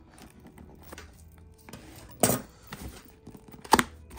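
Metal scissors cutting open a cardboard box and the box being handled on a wooden table, with two sharp clacks, about two and a quarter and three and three-quarter seconds in.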